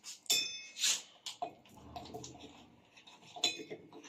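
Chocolate wrapper and knife being handled: a scatter of short crinkles, clicks and taps, a couple of them with a brief ring like metal touching metal.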